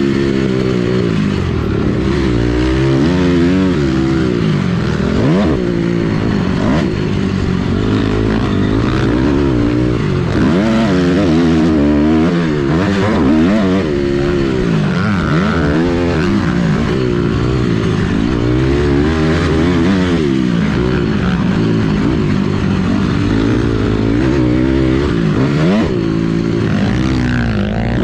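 Motocross dirt bike engine heard from on board, revving up and dropping back again and again as the rider accelerates, shifts and rolls off on the track.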